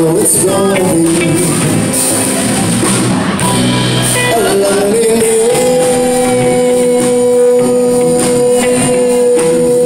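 Live band with drums, electric guitar, bass guitar and keyboard playing behind a man singing into a microphone. About halfway through, a long note is held to the end.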